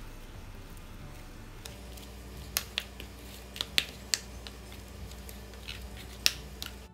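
Spatula tapping and scraping against a square metal baking pan while smoothing a thick chicken nugget mixture: an irregular scattering of light, sharp clicks.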